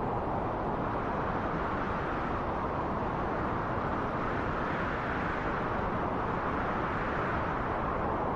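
Cold wind blowing against the microphone: a steady, low rush of noise with no breaks.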